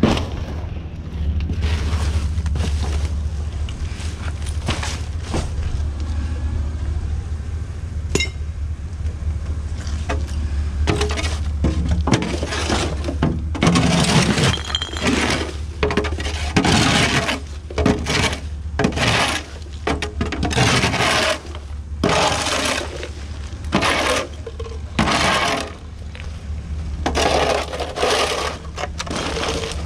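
A steel shovel scraping across brick pavers and scooping litter, with repeated scrapes and clinks of debris that come thick from about halfway in. Underneath is the steady low drone of the Isuzu cabover sweeper truck's engine idling.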